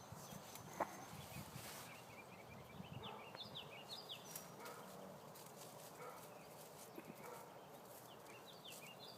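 Faint back-yard ambience with a songbird singing two short phrases of quick, falling chirps, one about three seconds in and one near the end.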